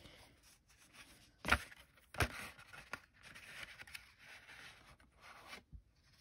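Paper envelope being opened by hand: two sharp paper snaps about a second and a half and two seconds in as the sealed flap comes open, then a few seconds of rustling as a sheet of paper slides out.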